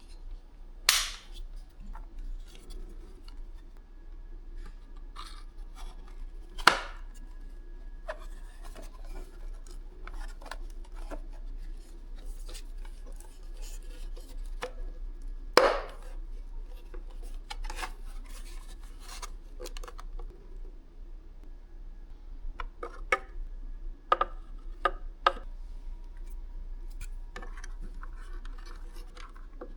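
Hand work on small parts: scattered sharp clicks and knocks, loudest about a second in, near seven seconds and near sixteen seconds, among irregular rubbing and scraping.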